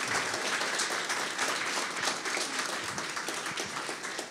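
Audience applauding: many hands clapping together, easing off slightly toward the end.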